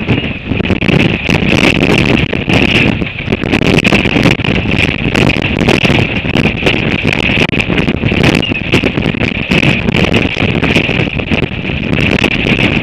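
Very strong gale-force wind, 40 to 60 knots, buffeting the microphone in constant hard gusts, with a steady high whistle running through it.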